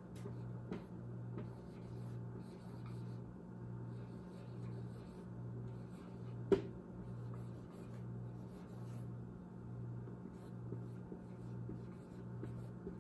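Writing: small scratches and taps of a pen or marker, with one sharper tap about six and a half seconds in. Under it runs a steady low hum that pulses a little over once a second.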